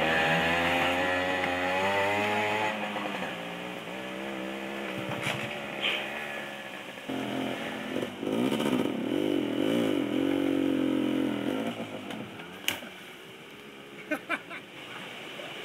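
Small moped engines revving and labouring through mud and water, their pitch wavering up and down. Loudest in the first few seconds and again from about seven to twelve seconds in, with a few sharp knocks near the end.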